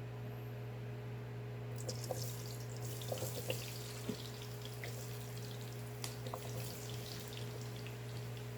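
Potatoes sizzling and crackling in hot oil, the hiss starting about two seconds in, over a steady low hum.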